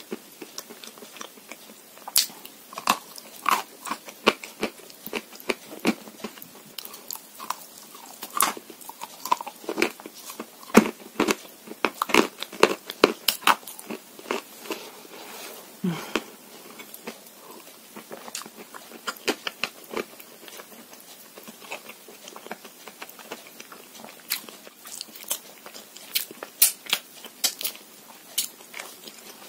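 A person biting and chewing chalk and Uzbek clay: sharp, irregular crunches, thickest in the first half and again near the end, with a sparser spell of softer chewing in between.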